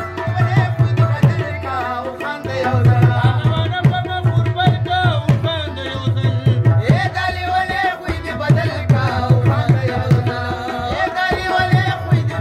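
Live Pashto folk music: tabla keeping a steady rhythm of low drum strokes under a harmonium's held notes, with a rubab playing ornamented melody lines.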